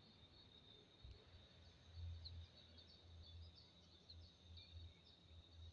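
Near silence: faint outdoor ambience with a steady high insect drone, scattered short chirps, and an uneven low rumble on the microphone.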